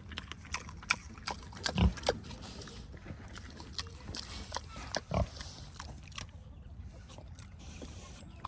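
Mangalitsa-cross pigs grunting, with many sharp clicks and knocks scattered throughout and two louder thumps about two and five seconds in.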